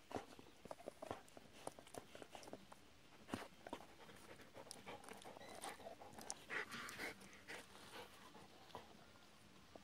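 Barbet dog licking and gnawing a large raw meaty bone: faint, irregular wet licks and chewing clicks, thinning out near the end.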